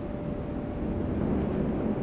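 Wind rumbling steadily and gusting a little louder in the second half. A single held wind chime note dies away in the first half second.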